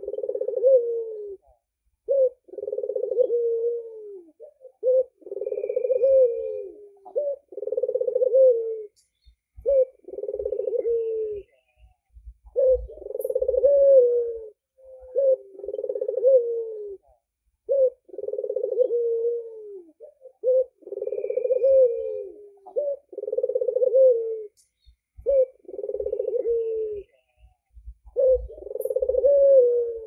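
White albino puter (Barbary dove) cooing over and over: rolling coos about two seconds long, one every two to three seconds, with brief gaps between them.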